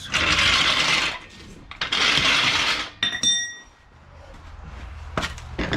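Two bursts of scraping, rushing noise about a second long each, then a single metallic clink that rings briefly, from a steel floor jack and its handle being handled on a garage floor.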